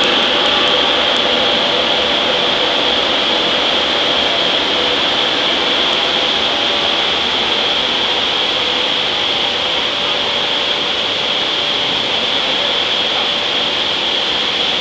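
Industrial machinery in a forging shop running steadily: a loud, even noise with a high hiss-like whine and no hammer blows.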